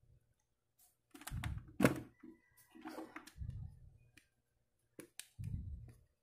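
Irregular plastic clicks and knocks as the capsule holder of a Nescafé Dolce Gusto coffee machine is handled and a capsule is fitted into it, the sharpest knock about two seconds in.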